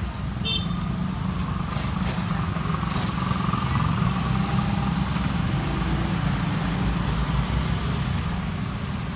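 Street traffic: cars and motorbikes on the road give a steady low rumble, with a few short clicks in the first three seconds.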